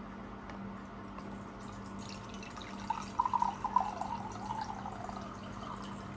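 Peach drink poured from a pouch into a mug, the liquid splashing into the cup. It starts about three seconds in, is loudest for the next second, then tapers off.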